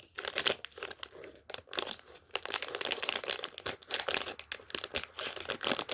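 Plastic jelly-snack packet crinkling and crackling in quick irregular bursts as hands squeeze and pull at it, trying to tear it open.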